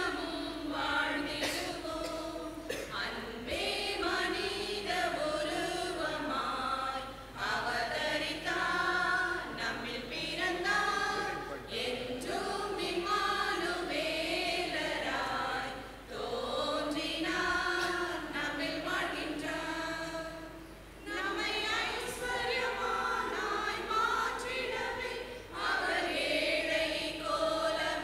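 Church choir, mostly women's voices, singing a Christmas carol together in phrases with brief pauses between them.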